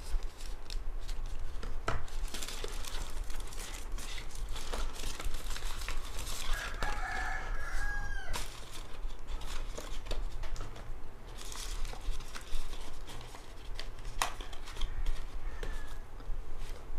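Crinkling and clicking of packaging being handled, with a rooster crowing once in the background about seven seconds in.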